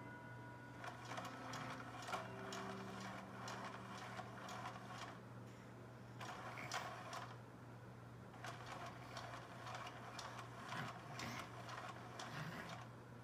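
Small motor and mechanism of a battery-powered pop-up cat toy running in spells of a few seconds, with fast clicking, pausing briefly twice. A faint steady hum sits underneath.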